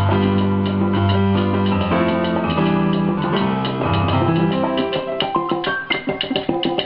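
Live salsa band playing, with held bass notes under busy chords, breaking into quick runs of short, sharply struck notes in the last couple of seconds.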